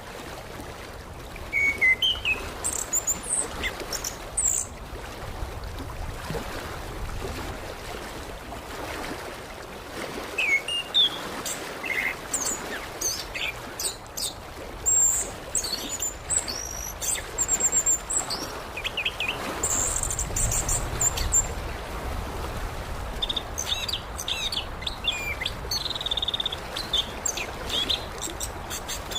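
Orange-headed thrush (anis kembang) singing in bursts of quick, varied chirps, sweeping whistles and short trills, over a steady rushing background noise.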